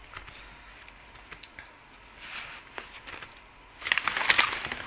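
Plastic snack packet crinkling as a hand rummages in it: light scattered crackles, then a louder rustle near the end.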